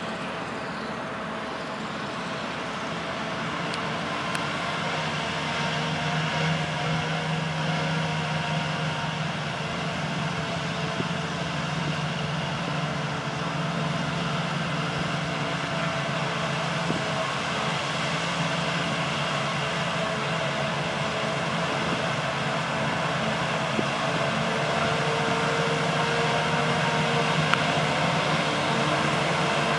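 Claas Jaguar 970 self-propelled forage harvester chopping wheat for silage, its engine and chopping drum running steadily under load, with a Fendt Vario tractor and silage trailer running alongside. A steady drone with held engine tones that grows louder as the machines come closer.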